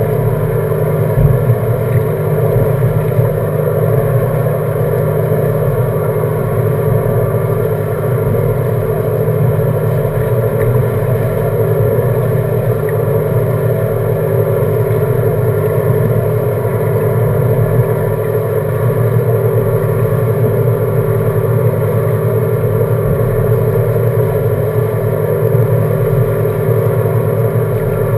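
Seven Marine 557 outboard's supercharged V8 idling steadily, with no change in pitch. A few short low thumps, such as one about a second in, sound over it.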